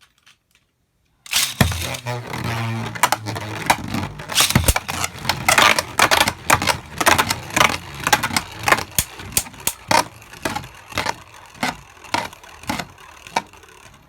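Beyblade spinning tops battling in a plastic stadium: starting abruptly about a second in, then clattering and knocking against each other and the stadium walls in quick hits that grow quieter as the tops lose speed.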